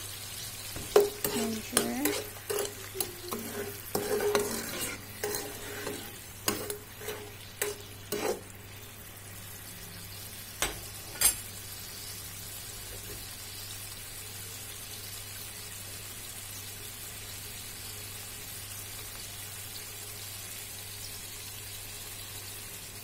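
A ladle stirring and scraping in a pan of sweet-and-sour sauce, with a run of clinking knocks against the pan over the first eight seconds and two more taps a few seconds later. After that the pan on the heat gives a steady sizzling hiss.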